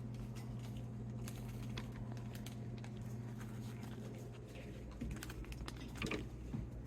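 Faint small taps and clicks, like objects being handled on a tabletop, over a steady low hum, with a few sharper clicks in the last two seconds.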